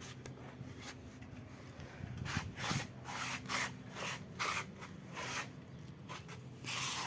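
Handling noise: a series of short rubbing and scraping sounds, several in a row from about two seconds in, over a low steady hum.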